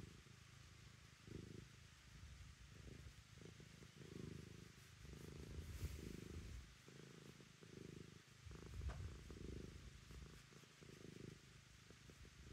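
Domestic cat purring, a faint low rumble that swells and eases in a steady rhythm with each breath, as it is contentedly scratched under the chin and cheeks.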